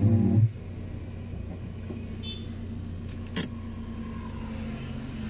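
A vehicle engine running steadily on the move, with a loud low burst in the first half-second and a sharp click about three and a half seconds in.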